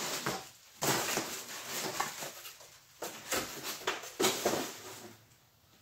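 Clear plastic packaging rustling and crinkling as it is handled and crumpled, in several separate spells, loudest about a second in.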